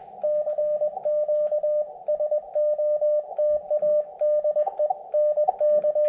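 Morse code (CW) from an amateur radio transceiver: a single steady beep keyed on and off in quick runs of short and long tones.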